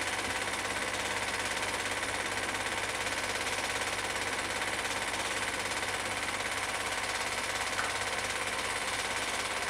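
Film projector running: a steady, rapid mechanical clatter from the film transport and shutter over a low hum, with one small click near the end.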